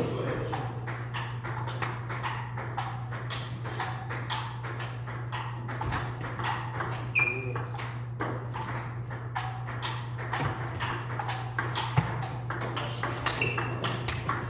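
Table tennis rally: the celluloid/plastic ball clicks in quick succession off the bats and the table. Under it runs a steady low hum, and a couple of short high squeaks come near the middle and near the end.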